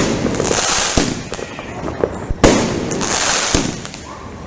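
Fireworks bursting: sharp bangs roughly once a second, the loudest about two and a half seconds in, each trailing off in a hissing wash.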